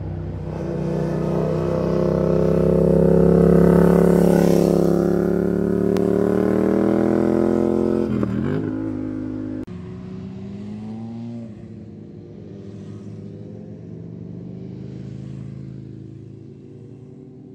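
Motorcycle engine accelerating hard and loud, peaking about four seconds in, its pitch dipping and climbing again with a gear change around eight seconds. After a sudden cut, a quieter motorcycle engine accelerates with rising pitch and fades near the end.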